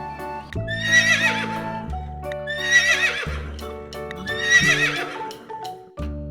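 Horse whinnying three times, each call a shaky, quavering neigh lasting about a second, over steady background music.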